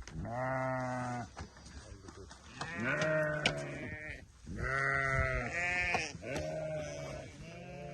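Sheep bleating, about six long calls one after another with short gaps between them.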